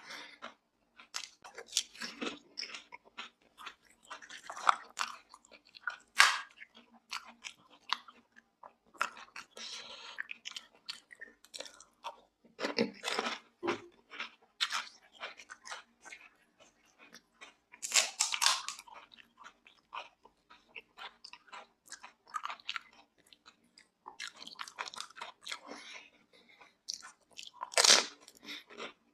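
Close-miked eating of crisp pani puri shells: irregular crunching bites and wet chewing, with a few louder crunches about 6, 13, 18 and 28 seconds in.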